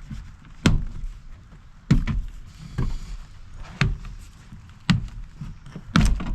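Plastic push-tab trim clips popping loose one after another as a door's interior panel is pried off: about six sharp pops, roughly one a second.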